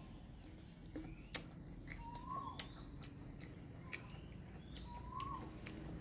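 A bird calling: a short rising-then-falling note repeated about every three seconds, with higher chirps between, over scattered soft clicks of chewing.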